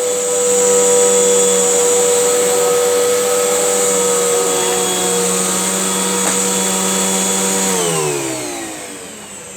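Hoover vacuum cleaner motor running steadily with a whine. It is switched off about eight seconds in and winds down, falling in pitch and fading.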